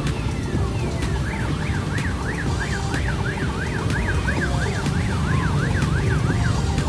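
Siren-like wail that sweeps quickly up and down about three times a second, starting about a second in and stopping near the end, over a steady low rumble and evenly spaced ticks.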